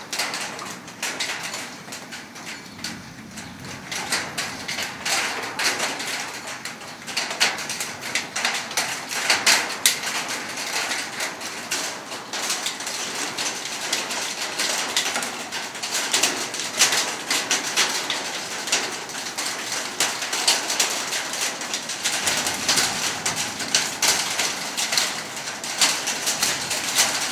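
Heavy thunderstorm rain falling, with a dense, irregular stream of drops tapping sharply on hard surfaces close by.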